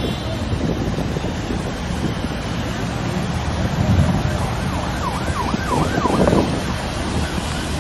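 A semi-truck ploughs through deep floodwater with a steady rush of water and engine rumble, and wind buffets the microphone. Around five seconds in, a siren wails briefly with quick rising-and-falling sweeps.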